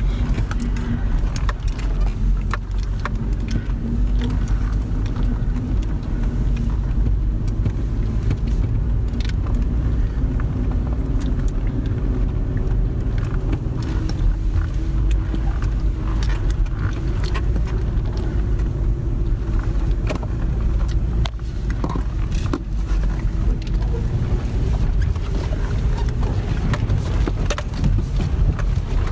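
Inside the cab of a 2017 Toyota 4Runner TRD Pro driving a rough dirt trail: the 4.0-litre V6 and tyres make a steady low rumble, with scattered clicks and rattles as the truck bounces over the uneven ground.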